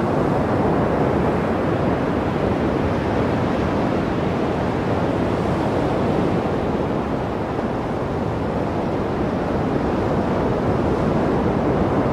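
Ocean surf: a steady, even rush of breaking waves.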